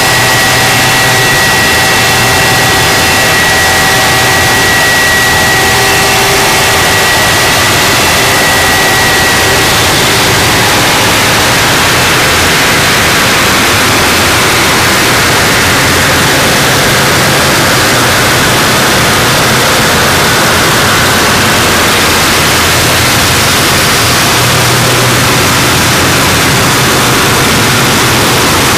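Japanese harsh noise music: a loud, unvarying wall of distorted static. A few thin steady high tones ring through it and die away about ten seconds in.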